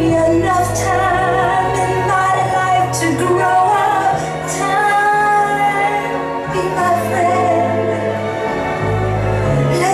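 Music: a woman singing a wavering melody without clear words over an accompaniment with held bass notes.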